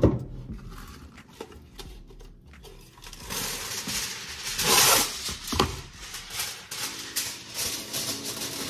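Aluminium foil being pulled from its box, torn off and crinkled as it is pressed into an air fryer basket, loudest about five seconds in. There is a sharp knock at the start and a few lighter knocks in between.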